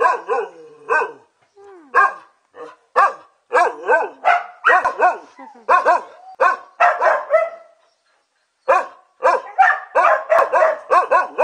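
A large shepherd-type dog barking in quick runs of short, pitched barks, with one pause of about a second about two-thirds of the way through.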